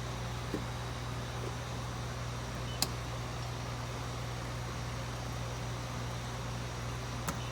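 Continuous inkjet printer running: a steady low hum with a hiss over it, and a few light clicks, the sharpest about three seconds in.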